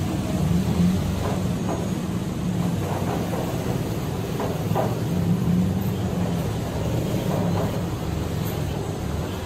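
Motorcycles crossing a steel truss bridge at low speed, their engines running with a steady low drone that swells a little now and then.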